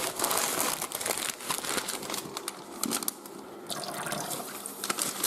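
Wad of crumpled newspaper crinkling and crackling while water runs onto it to wet its surface.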